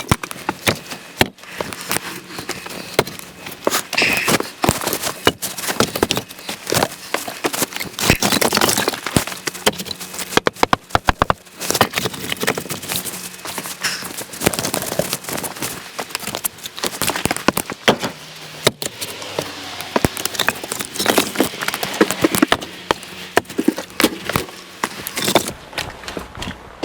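Split firewood knocking and clattering as pieces are handled and tossed onto a pile, in many irregular wooden knocks.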